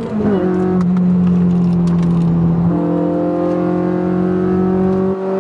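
2008 Honda Civic Si's tuned K20 2.0-litre four-cylinder, breathing through a catless race header and cat-back exhaust, driving under way. The revs fall quickly right at the start, then the engine pulls steadily with its pitch slowly climbing, with a brief dip in level just before the end.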